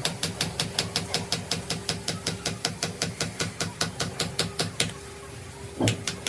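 Rapid, evenly spaced tapping, about seven strikes a second, that stops about five seconds in; a single heavier knock follows near the end.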